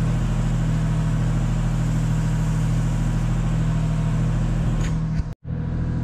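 Engine of an aerial lift running steadily, a low even drone. The sound drops out for a split second near the end.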